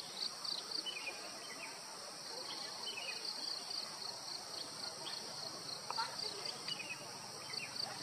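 Forest ambience: a steady high-pitched buzzing of insects, with short bird chirps scattered throughout.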